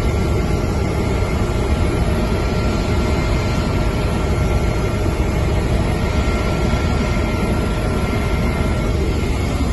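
Steady, loud rumble of an aircraft's engine heard from on board, with a faint steady whine above it.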